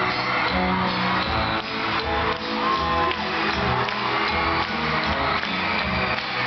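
Live pop-rock band music at an arena concert, with guitar prominent.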